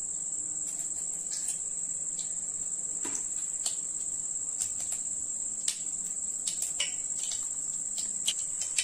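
Mustard seeds starting to splutter in hot oil in a kadai: scattered single pops about once a second, over a steady high-pitched whine.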